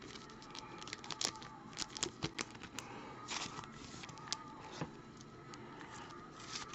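Trading cards and foil pack wrappers being handled: faint crinkling with irregular light clicks and taps.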